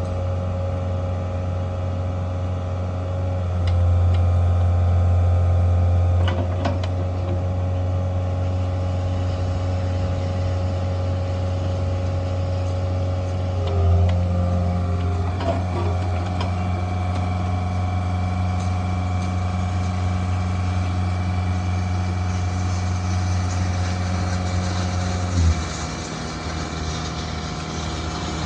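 Bobcat 435 mini excavator's diesel engine running steadily. The engine note shifts several times: it gets louder for a few seconds early on, changes again about halfway, and drops near the end. A few short clanks come from the machine.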